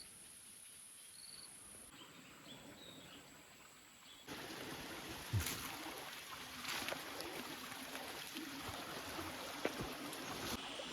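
Small forest stream trickling, with a few sharp snaps or knocks. In the first few seconds it is quieter: a steady high-pitched hum with two short high chirps.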